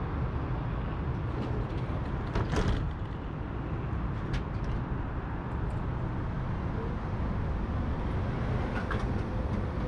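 Tram heard from on board: a steady low rumble, with a few short clicks and rattles, the loudest about two and a half seconds in.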